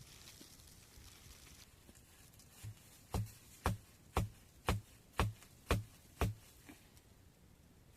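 A run of seven sharp knocks, evenly spaced about half a second apart, starting about three seconds in.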